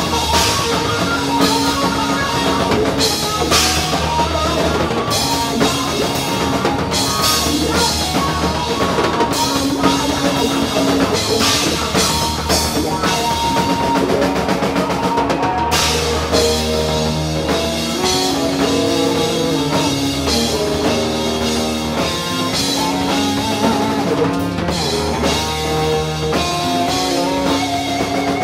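Live rock band playing loud and steady: electric guitar over a full drum kit.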